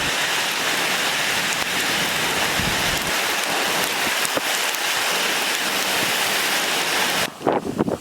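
Heavy rain pouring steadily in a severe thunderstorm with damaging winds, then cutting off abruptly about seven seconds in.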